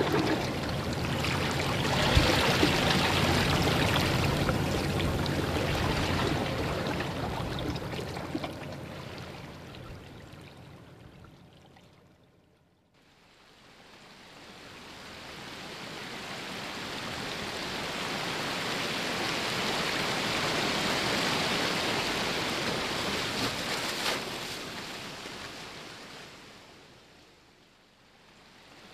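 Rushing water that swells and fades in long, slow surges, dying away almost completely about halfway through and again near the end.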